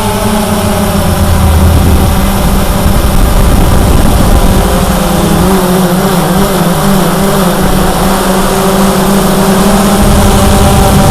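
Cheerson CX-20 quadcopter's brushless motors and propellers humming steadily in flight, the pitch wavering a little around the middle as the motors adjust, over a low rumble.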